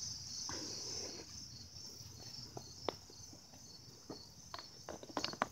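Insects chirring steadily in a high band, with scattered sharp clicks and crackles of a plastic water bottle being pawed and bitten by a small dog, more frequent near the end.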